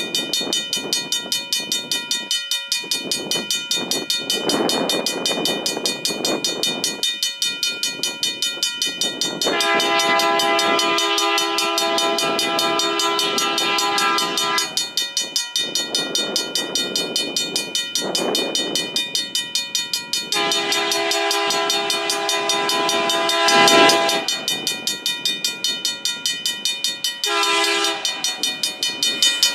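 Horn of CN's GE C40-8M cowl locomotive 2431 sounding the grade-crossing signal as the train approaches: a long multi-tone chord blast about ten seconds in, a second long blast about twenty seconds in, and a short one near the end. Underneath, a bell rings steadily about twice a second.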